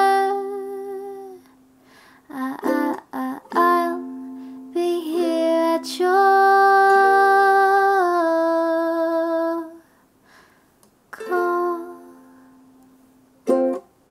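Music: a woman singing the closing phrase of a slow ukulele song in long held notes, close to humming, with pauses between them; the longest note is held about four seconds and a short last note comes just before the end.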